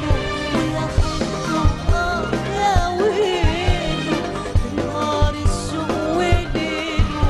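Live Arabic song with an orchestra: violins playing a wavering melody over a steady percussion beat, with a woman singing.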